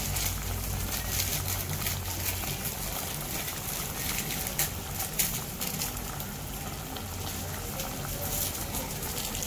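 Pot of water with chicken skins boiling steadily, a continuous bubbling with faint scattered pops.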